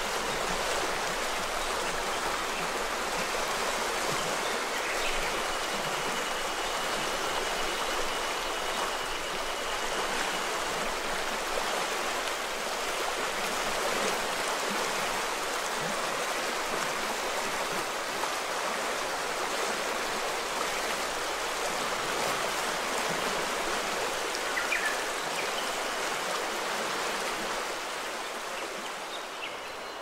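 Steady rush of the Azusa River, a clear mountain river, flowing at an even level.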